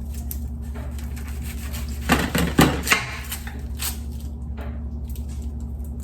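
Kitchen handling noises: scattered light knocks and clatter of dishes and utensils, a little louder about two seconds in, over a steady low hum.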